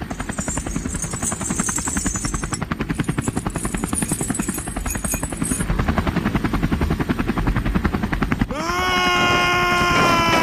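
A motor or engine running with a fast, even chugging pulse. About eight and a half seconds in, a held, horn-like tone slides up and then stays steady to the end.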